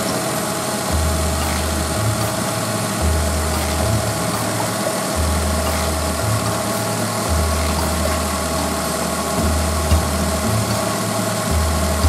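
Small three-cylinder car engine idling with the air conditioning running while R134a refrigerant is charged through the low side. A low drone steps up and down every second or two, and there is one short click near the end.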